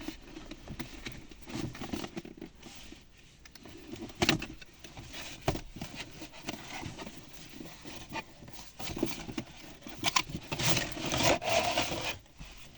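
Cardboard toy box and plastic packaging being handled and opened: scraping and rubbing with a few sharp knocks, busiest in a stretch near the end.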